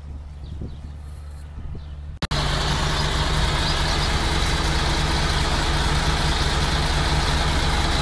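A truck engine running with a low, steady hum; about two seconds in, a sudden cut brings a truck idling loud and close, its rumble overlaid with a steady hiss.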